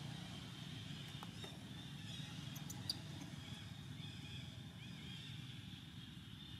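Steady outdoor background: a low rumble with faint high chirping over it, and a single sharp click about three seconds in.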